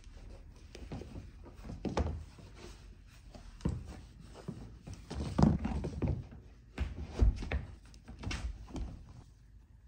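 Sneakers being put on: irregular thuds of shoes and feet on a wooden floor, with rustling of laces and clothing, the loudest knocks about halfway through and again a couple of seconds later.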